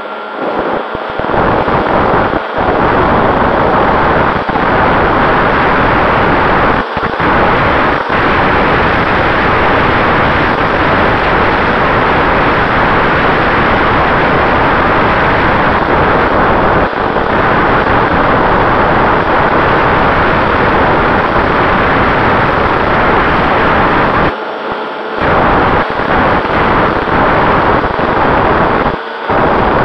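Air rushing hard over the onboard camera microphone of a Zeta Phantom FX-61 foam flying wing in flight, with a faint steady whine from its electric pusher motor and propeller underneath. The rush dips briefly a few times.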